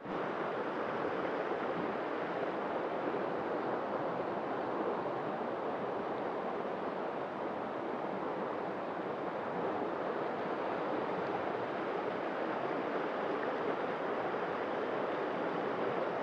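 Fast-flowing river rushing steadily over rocks and shallow rapids.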